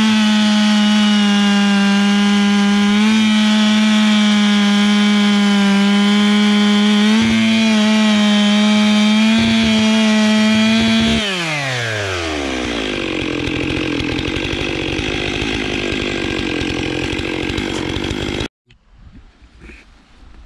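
Stihl MS 661 C-M two-stroke chainsaw at full throttle, its chain cutting into a beech stump with a high, steady engine note. About eleven seconds in the throttle is released and the pitch falls to idle; the saw idles until the sound cuts off suddenly near the end.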